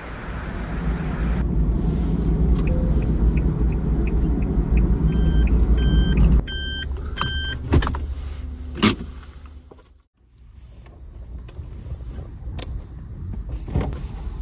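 A kei van's engine running with a low rumble and faint regular ticking, cutting off about six seconds in. A few short beeps follow, then two sharp knocks, and after a brief gap some light clicks and knocks.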